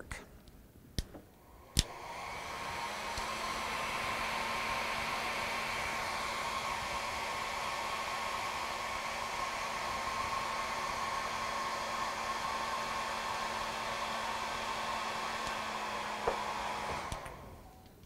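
Small hand-held hair dryer switched on with a click about two seconds in, spinning up over a second or two to a steady rush of air with a low hum and a higher whine, then switched off about a second before the end and spinning down.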